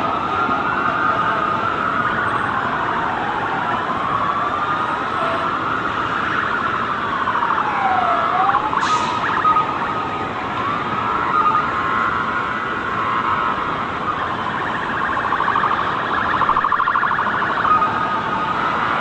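Several emergency-vehicle sirens wailing at once, their pitches rising and falling and overlapping one another, over a steady broad haze of city noise.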